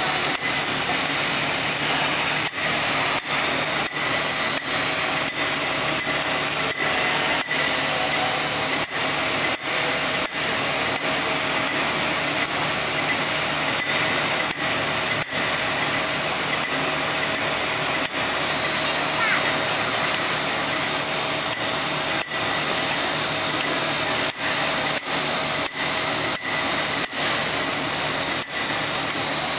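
Corn snack extruder line running: a steady mechanical noise with a high whine, and a regular sharp tick about every three quarters of a second.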